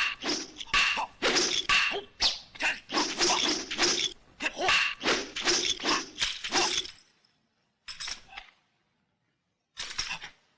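Film fight weapon clashes: nunchaku, tonfa and a three-section staff clacking against one another in a fast run of ringing blows for about seven seconds, then two short flurries near the end.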